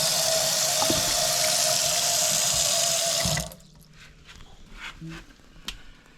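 Newly installed American Standard garbage disposal running with tap water pouring into the sink, a steady hum under the rush of water; both stop abruptly about three and a half seconds in, leaving a few faint clicks.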